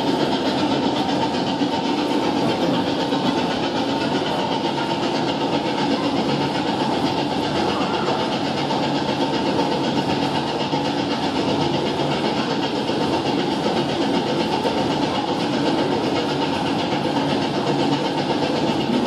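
Steady steam-locomotive running sound, hiss and rail clatter, accompanying the SNCF 232 U 1 Hudson locomotive as its driving wheels and rods turn on rollers in its museum display; the sound is a played-back soundtrack, not live steam.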